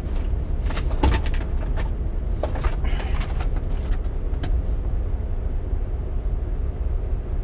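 Steady low rumble of a vehicle, with a scatter of small clicks and knocks over the first four and a half seconds.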